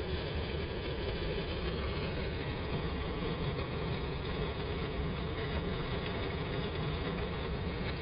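Steady rush of water flowing and splashing down a garden pond waterfall just after spring startup.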